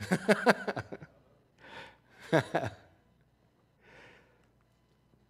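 A man laughing close to the microphone: a burst of quick laughs at the start, two shorter breathy laughs a couple of seconds in, and a faint exhale near the end.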